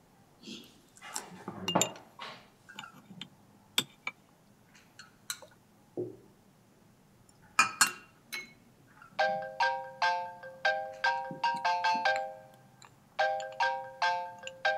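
Spoons clinking lightly against porcelain bowls and dishes during a meal. About nine seconds in, a mobile phone ringtone starts: a quick, repeating tune of electronic tones that pauses briefly, then plays again, louder than everything before it.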